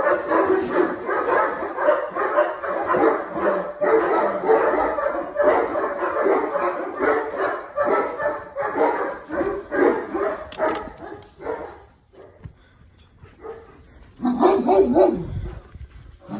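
Dogs barking in a dense, rapid run of barks that dies away about twelve seconds in, then another burst of barking about two seconds later.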